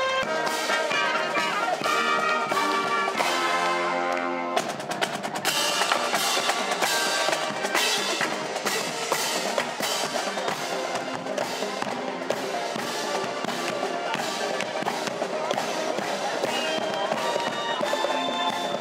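Marching band with sousaphones and drums playing: held brass chords at first, then, about four and a half seconds in, an abrupt change to fast snare and bass drum drumming under the brass.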